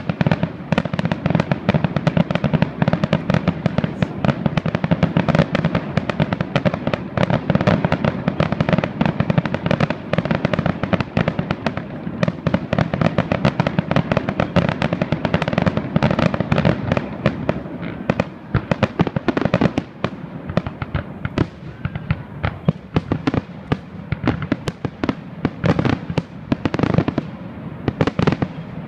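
Fireworks display: rapid, overlapping bangs and cracks of aerial shells, many a second, thinning out over the last ten seconds to a few separate bangs.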